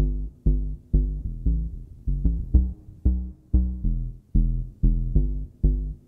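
Background music: a run of pitched notes over a deep bass, about two to three a second, each note dying away.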